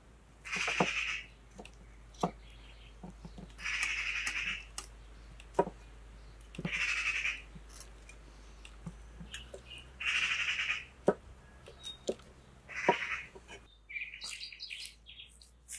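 Large kitchen knife scraping and cutting pumpkin in strokes about every three seconds, with light knocks of the blade. Near the end, birds chirping.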